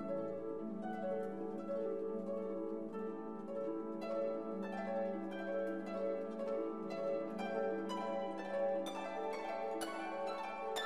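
Background music: quick plucked string notes over held low chords.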